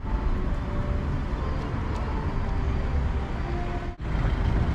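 City street ambience: a steady hum of car traffic running along the road. The sound breaks off for an instant about four seconds in.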